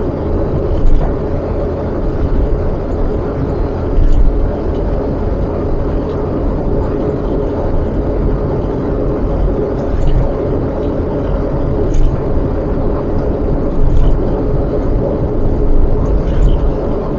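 A car driving, with a steady low rumble of engine and road noise and a few faint knocks now and then.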